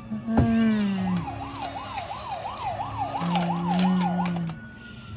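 Toy police car's electronic siren: a tone warbling up and down about two to three times a second for roughly three and a half seconds, after a falling tone near the start.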